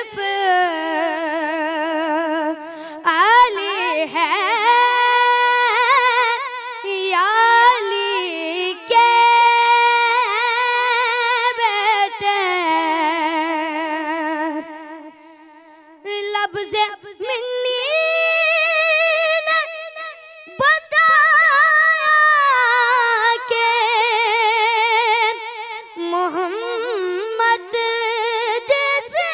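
A boy's high voice singing an Urdu manqabat, a devotional praise poem for Imam Ali, unaccompanied into a microphone, in long held notes with wavering, ornamented glides. The singing breaks off briefly about halfway through.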